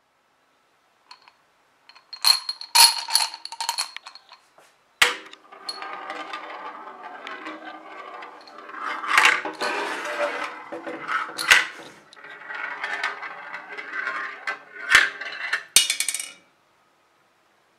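A marble rolling around the inside of plastic marble-run funnels: a steady, swirling rolling sound that swells and fades as it circles, with sharp clacks as it drops from one funnel into the next. A quick rattle of clicks comes near the start, and the sound stops abruptly about three-quarters of the way through the final stretch.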